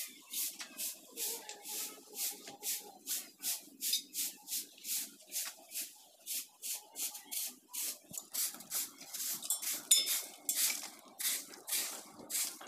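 Short-handled straw hand broom (jhaadu) sweeping dust on a concrete floor: quick swishing strokes, about two to three a second, in an even rhythm.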